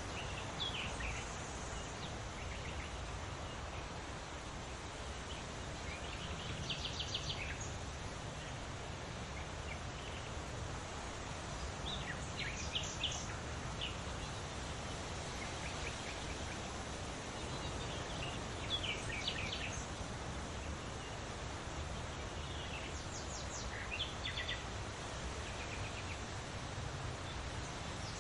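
Songbird singing short phrases of quick high notes, about every five or six seconds, over a steady rushing background noise.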